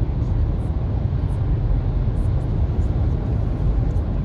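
Steady low rumble of a car driving in traffic, heard from inside the cabin: road and engine noise.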